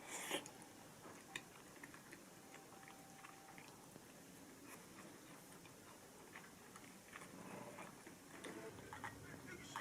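Near silence: faint scattered small clicks and light taps, with a slightly louder tap just after the start.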